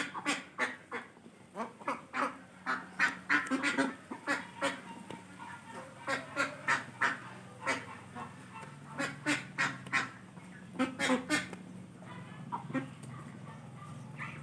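Farm birds calling: many short, pitched calls in quick succession, over a steady low hum that grows stronger near the end.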